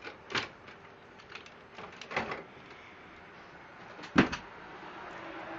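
Hard plastic clunks and clicks of HP LaserJet 2840 toner cartridges being pulled out of the printer's rotating carousel: three separate knocks, the loudest about four seconds in.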